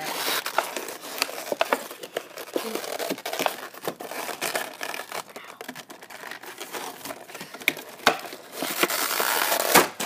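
Clear plastic blister packaging of a toy being crinkled, pulled and torn open by hand: a steady run of irregular crackles and snaps that gets denser and louder near the end.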